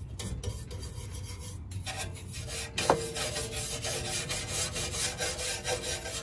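A long-handled scrub brush scrubbing back and forth over the rusty steel shell of a 30-year-old OEM muffler on a 1991 Honda CRX DX, in rough, rasping strokes. About three seconds in there is one sharper knock with a short ring.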